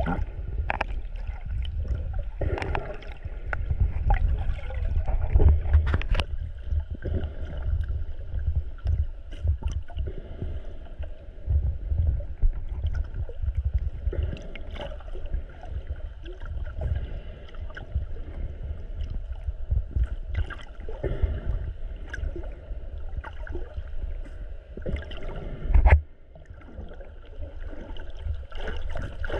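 Underwater water noise picked up by a snorkeler's camera: sloshing and gurgling with a low rumble and many scattered clicks and knocks, over a faint steady hum. A loud knock comes about 26 seconds in, after which it turns quieter.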